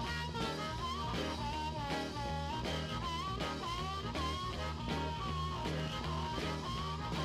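Background music: an instrumental with a sliding lead melody over a steady, repeating bass line.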